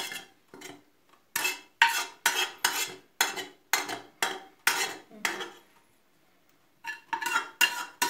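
Metal spoon scraping and knocking against the inside of a metal pot in quick strokes, about two to three a second, as hot rice pudding is scooped out onto plates. The strokes pause for about a second near six seconds in, then start again.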